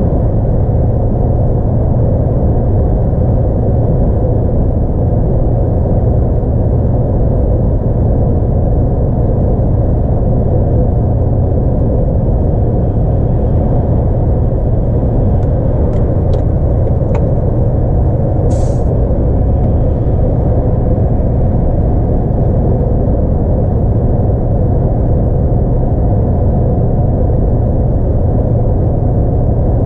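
Steady drone of a loaded DAF XF 106 tractor unit cruising on the motorway, its 10.8-litre diesel engine and tyre and road noise heard from inside the cab. A few light clicks come about halfway through, then a brief hiss of compressed air.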